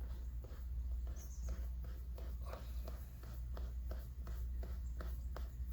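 Irregular light clicks and scrapes of a shift knob being twisted down onto the gear lever's threads by hand, over a steady low hum.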